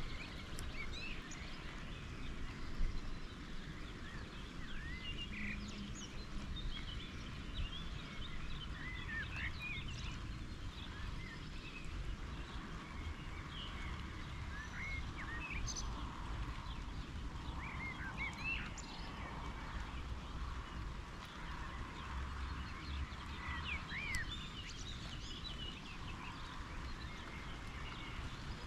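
Small birds chirping and singing in quick, short calls, over a low steady rumble.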